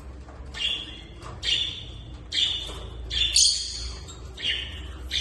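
Small pet parrot giving a series of short, harsh squawking calls, about one a second, five in a row.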